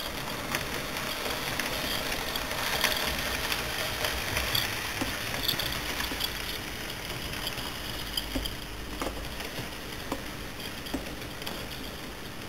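Model train in Trenitalia regional livery running along the layout's track: a steady rolling rumble with scattered small clicks from wheels and track, loudest a few seconds in, then slowly fading as it passes.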